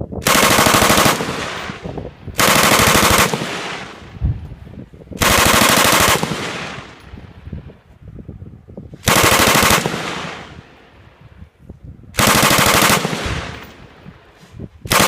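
A pair of M249 light machine guns "talking": short bursts of automatic fire traded back and forth, five bursts each under a second long, every one followed by a fading echo.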